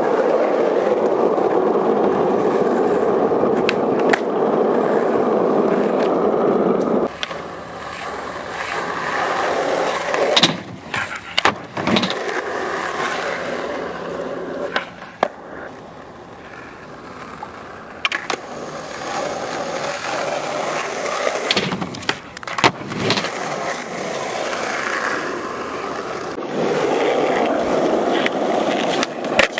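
Skateboard wheels rolling over rough asphalt with a steady rumble, broken in the middle by a series of sharp wooden clacks and slaps of the board being popped and landed. The rolling picks up again near the end.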